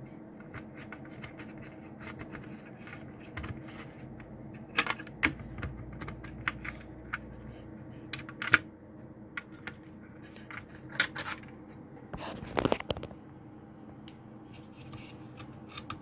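Irregular small clicks, taps and scrapes of an Acer Aspire ES1-531 laptop being taken apart by hand, its antenna leads and motherboard handled against the plastic and metal case. A sharp knock stands out just past the middle, and a short run of louder clatter comes about three quarters of the way through.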